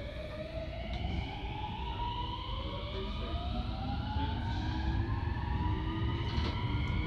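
Electric multiple-unit train's inverter-driven traction motors whining upward in pitch as the train accelerates from a standstill out of the station, several tones rising together. Beneath them the rumble of the wheels on the rails grows louder as it gathers speed.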